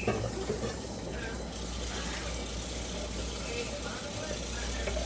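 Faint, indistinct voices over a steady low hum.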